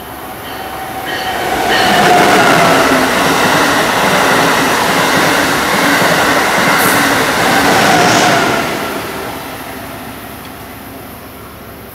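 Amtrak Acela Express high-speed trainset passing through a station at speed without stopping: wheel and air noise builds over about two seconds, stays loud for about six seconds as the train goes by, then fades as it recedes.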